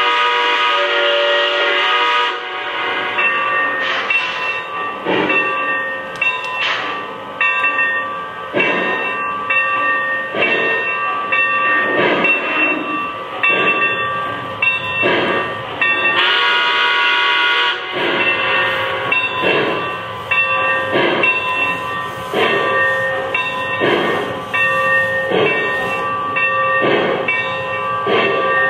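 O scale model Santa Fe 4-8-4 Northern steam locomotive's onboard sound system: a chime steam whistle blast at the start, then rhythmic chuffing that quickens over the first few seconds and settles to about one and a half to two chuffs a second, with a second whistle blast about halfway through.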